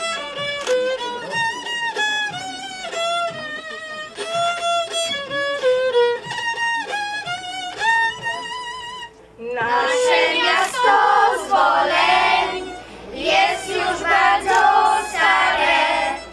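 Folk fiddle playing a solo melody with vibrato for about nine seconds. Then a group of children's voices and an adult woman's voice come in, singing a folk song together.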